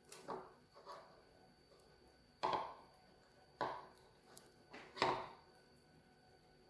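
Slime being kneaded and squeezed by hand in a bowl, making short wet squelches and pops. A few small ones come in the first second, then three louder ones about a second and a half apart.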